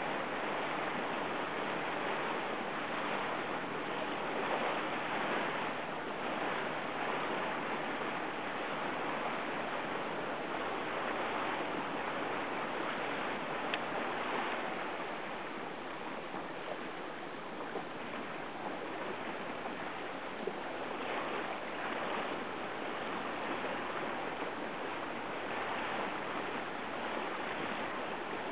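Steady rush of wind and water, with one sharp tick about halfway through.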